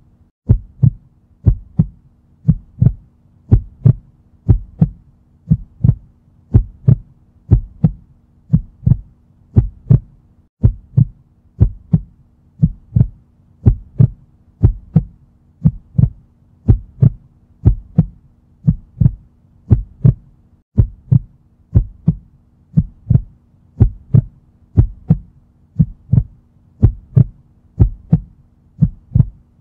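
Heartbeat sound effect: a steady, slow heartbeat of paired lub-dub thumps, about one beat a second, over a faint steady hum.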